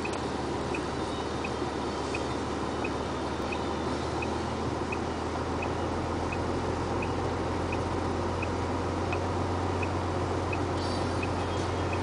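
Truck engine running under way, heard from inside the cab: a steady low drone that grows a little stronger about halfway through, over road noise. A short high tick repeats about every 0.7 seconds.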